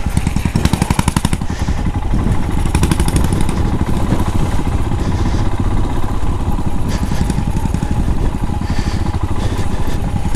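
Royal Enfield Himalayan motorcycle engine running steadily under the rider on a muddy trail, with short louder, rattlier stretches about a second and three seconds in.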